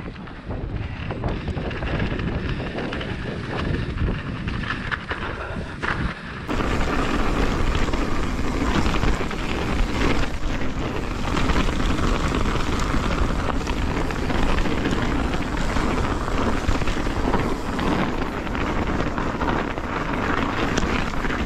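Mountain bike riding fast down a dirt forest trail: wind rushing over the camera microphone, with tyres rolling and the bike knocking and rattling over bumps. The noise gets louder about six seconds in.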